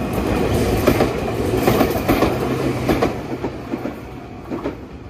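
Meitetsu electric train running on the track, its wheels clacking over the rail joints. Loudest over the first three seconds, then fading away.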